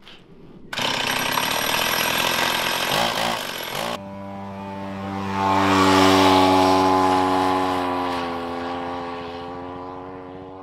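Two-stroke Stihl MS 170 chainsaw engine on a kick scooter, running at high revs from about a second in and cutting off abruptly a few seconds later. A steady droning tone with many overtones follows, swells and slowly fades out.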